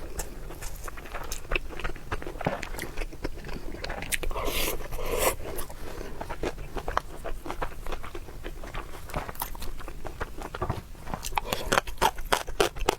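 Close-miked eating: biting and chewing with a dense run of small wet clicks and snaps, busier near the end.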